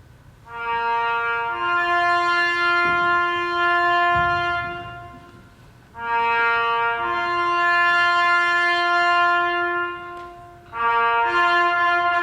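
A solo brass horn plays a slow ceremonial call of long held notes, one note at a time, in three phrases. The phrases begin about half a second in, about six seconds in, and just before the end.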